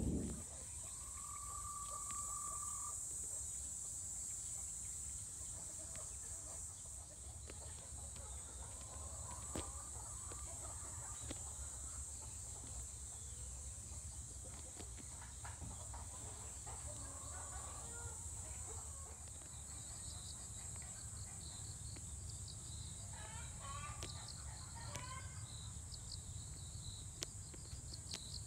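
Outdoor ambience: a steady high insect drone with a low rumble underneath, and faint bird calls now and then, including a quick run of chirps about 23 seconds in.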